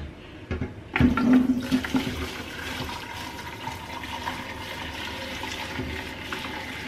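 Beef broth being poured from a pot through a sieve into another pot: a steady splashing pour that starts with a clunk about a second in.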